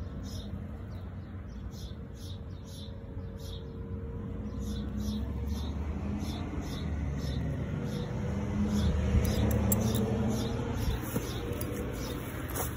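Outdoor ambience: short high chirps repeating about two or three times a second, over a low rumble that grows louder in the middle and carries a faint rising and falling hum, with a few sharp clicks near the end.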